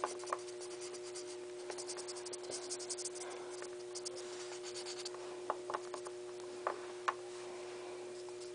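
Felt-tip washable marker scribbling on a small plastic toy figure: a run of quick, scratchy strokes, followed by a few light clicks as the figure and marker are handled. A steady low hum runs underneath.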